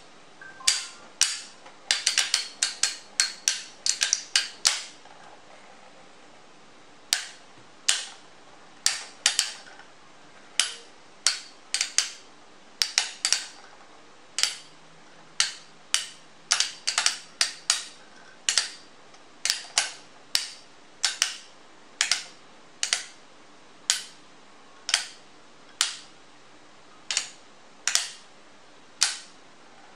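Two battle spinning tops clashing as they spin against each other in a plastic stadium: sharp clacks, a rapid flurry a couple of seconds in, then about one or two clacks a second.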